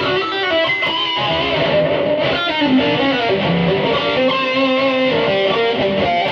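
Electric guitar fitted with DiMarzio Dreamcatcher and Rainmaker pickups, played through a Boss GT-100 multi-effects unit: a flowing line of single notes, some quick and some held, played mostly without the pick.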